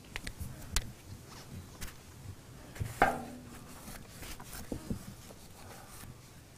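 A cloth rubbing over a diamond-plate aluminium panel, with scattered light clicks and knocks as the cabled box beside it is handled; the loudest knock comes about three seconds in.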